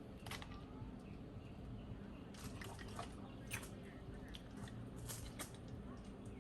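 Faint, scattered light clicks and taps, a few to the second at most, over a low steady background hum.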